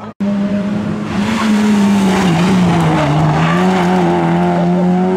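Peugeot 106 rally car's engine at high revs through a hairpin, the revs sagging a little near the middle and then picking up again, with the tyres sliding and skidding on the loose surface. It cuts in abruptly just after the start.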